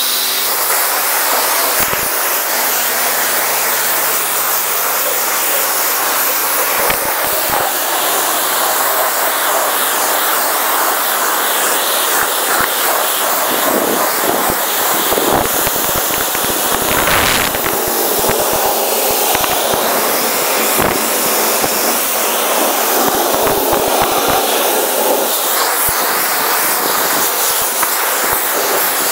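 Self-service car wash high-pressure lance spraying foamy water onto a car's bodywork: a loud, steady hiss of spray, with scattered small knocks.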